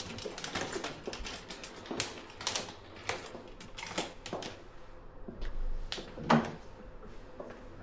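A run of irregular light clicks and taps, a few a second, with a louder knock about six seconds in.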